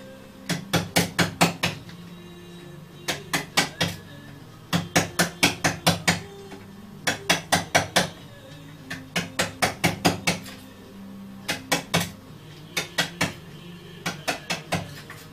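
Wooden mallet knocking on a wooden music box being repaired, in quick runs of three to eight taps, about five a second, with short pauses between the runs.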